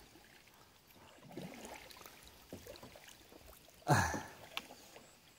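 Lake water slapping and lapping softly around a small boat or raft, with one louder splash about four seconds in.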